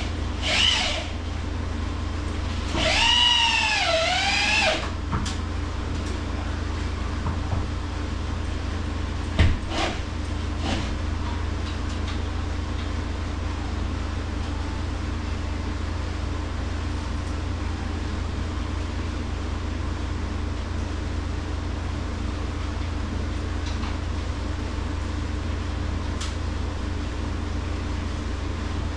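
A cordless drill driving a screw into wood runs briefly about three seconds in, its whine dipping in pitch under load and recovering. A steady low machine hum runs underneath, and a single sharp knock comes near the ten-second mark.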